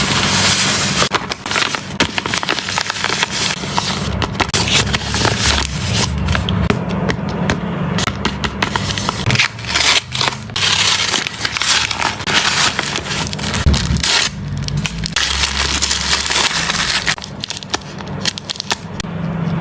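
Plastic blind-bag packaging crinkling and rustling as it is handled and opened, with many sharp crackles.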